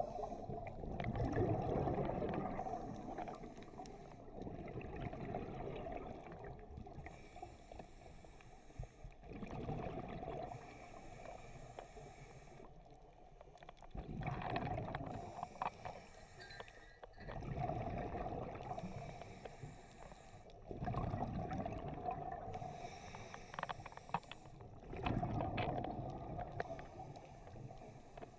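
Scuba diver breathing through a regulator underwater: a short hissing inhale, then a longer burst of exhaled bubbles, repeating about every three to four seconds.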